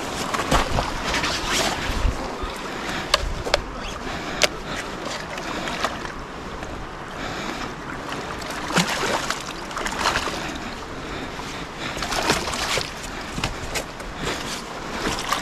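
Wind buffeting the microphone over a steady rush of noise, with sharp clicks and knocks scattered throughout and water splashing as a small hooked fish is brought in to the rocks.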